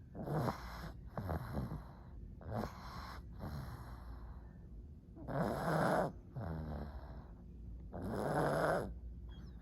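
Pug snoring in its sleep: a run of snoring breaths about a second long each, the two loudest coming about five and a half and eight seconds in.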